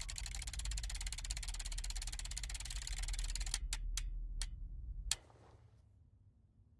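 A spinning zoetrope's mechanism ticking rapidly over a low hum, then slowing into a few clicks spaced ever wider apart, as the drum winds down, and stopping about five seconds in.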